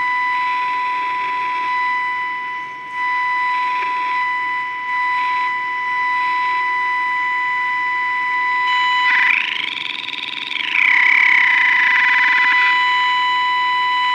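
Philco transistor radio's speaker sounding a steady, distorted test tone from an alignment signal generator, with hiss, while an IF transformer slug is being tuned. About nine seconds in, a whistle sweeps up and falls back down over about two seconds. The set has too much gain, which the repairer blames on off-value capacitors inside the IF transformer cans.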